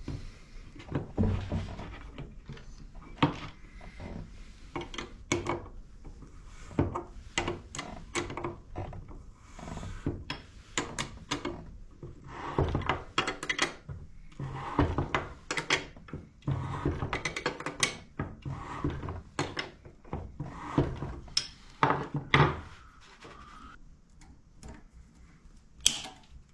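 Irregular clicks, knocks and rubbing of tools and parts being handled during rear suspension work on a trials motorcycle, busiest in the middle stretch.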